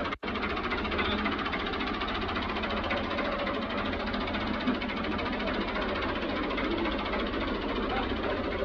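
Fiat 640 tractor's four-cylinder diesel engine idling steadily. The sound drops out for an instant just after the start.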